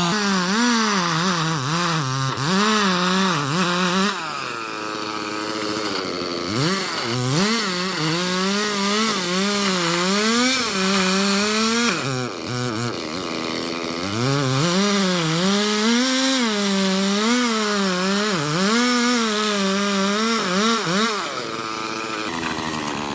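Chainsaw cutting into a dead tree, its engine pitch wavering up and down under load as the chain works through the wood. It drops to a lower speed twice, around four and twelve seconds in, then revs back up.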